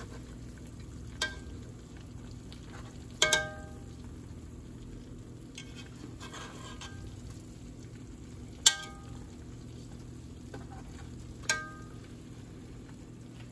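Breaded cube steaks frying steadily in a pot of hot oil while being turned with a metal slotted spatula, which clinks sharply against the pot about four times, the pot ringing briefly after each hit, with a scrape in between.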